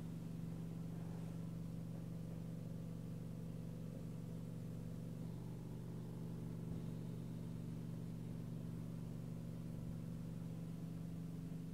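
Home oxygen concentrator running continuously, a steady low mechanical hum.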